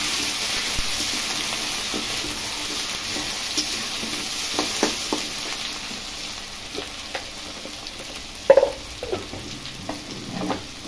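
Cubed new potatoes and onion frying in oil in a blackened kadai, a steady sizzle that slowly dies down as the flame is turned to medium-low. A metal spatula scrapes and knocks against the pan now and then, most loudly about eight and a half seconds in.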